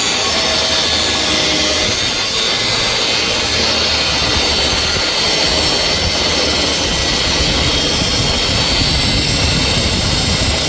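Angle grinder cutting into steel angle iron, running steadily under load.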